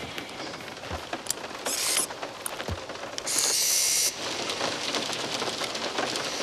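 Heavy rain drumming on a car's roof and windows, a steady patter of many small drops. Two short hissing bursts stand out over it, one about two seconds in and a longer, louder one near four seconds.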